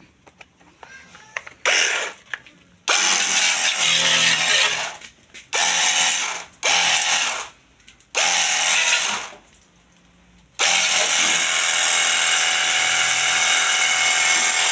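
Battery-powered portable pressure washer running its pump and spraying water in five bursts of one to two seconds as the trigger is squeezed and let go, then spraying without a break from about ten seconds in.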